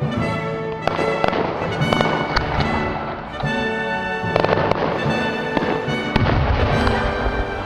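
Fireworks going off, several sharp bangs and a deep boom about six seconds in, over loud music playing throughout.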